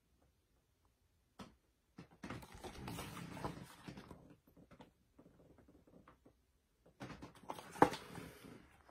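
A large picture book being handled and its pages turned: two spells of faint paper rustling, with a few light clicks and a sharper knock near the end.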